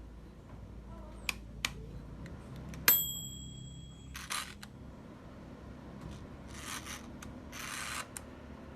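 Handling of small hard parts: two light clicks, then a sharp metallic clink that rings briefly, followed by a few short rustling scrapes.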